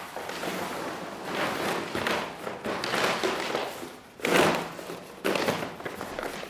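Large sheets of paper rustling and crinkling as they are handled and gathered up, in a run of separate surges, the loudest about four seconds in.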